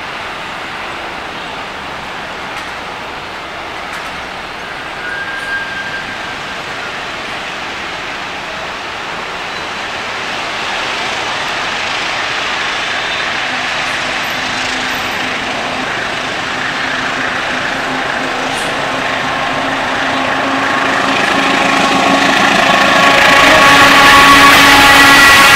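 A CC 203 (GE U20C) diesel-electric locomotive approaching with a passenger train and drawing close. It grows steadily louder, and a steady engine note comes through in the second half as it nears.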